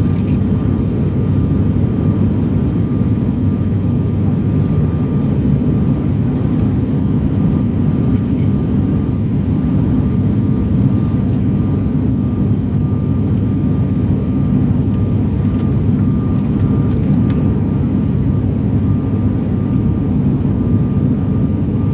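Steady low drone of an aeroplane in flight, heard from inside the cabin: engine and airflow noise, with a faint high steady tone running through it.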